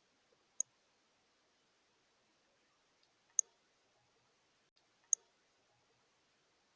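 Three short, sharp, high chip notes from a small bird at the feeder, spaced a couple of seconds apart.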